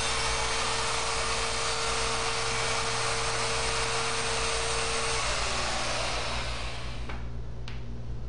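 Ryobi router with a 45-degree chamfer bit running at full speed with a steady whine, then switched off about five seconds in, its pitch falling as the motor spins down. Two light clicks near the end.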